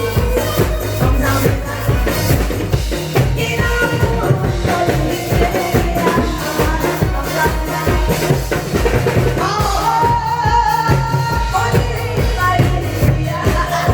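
Loud upbeat music with a steady, driving bass-drum beat and a melody line over it.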